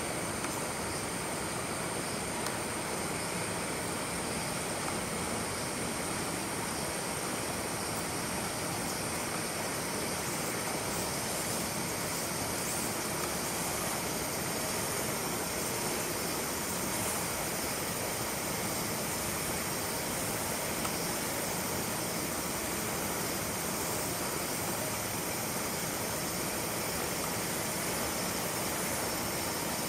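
Steady, even rushing noise with a thin, constant high whine above it and a few faint ticks.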